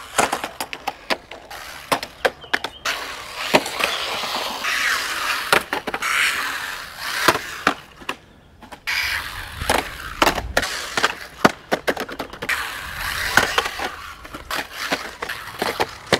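Small brushless RC car (MJX Hyper Go) driving on concrete skate-park ramps: hard tyres rolling and scrubbing over the concrete, with many sharp clacks and knocks as it hits transitions and lands.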